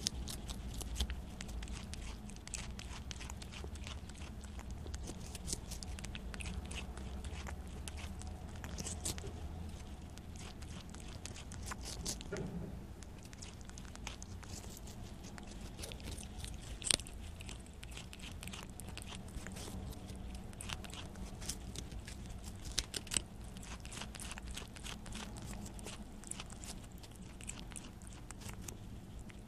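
Prairie dog biting and chewing a piece of Korean melon (chamoe), a steady run of small wet, crunchy clicks picked up very close by a lapel microphone clipped to its fur. A few sharper crunches stand out, one a little past halfway and two more a few seconds later.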